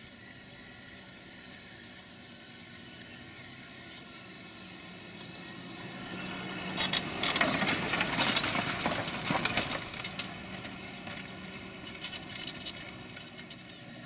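John Deere tractor's diesel engine pulling a reversible plough, a steady drone that swells about halfway through as it comes close. A dense crackle of clicks rides over it for a few seconds at its loudest, then both fade.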